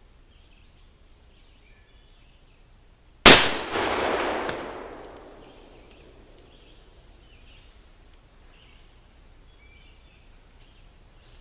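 A single shot from a .44 Colt 1847 Walker cap-and-ball revolver loaded with 45 grains of black powder, about three seconds in, followed by a loud noisy tail that fades away over about two seconds.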